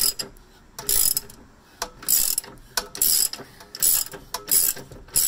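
Ratcheting wrench clicking in short bursts as it is swung back and forth, about one burst a second, turning off the nut on the rear strut's upper mounting bolt.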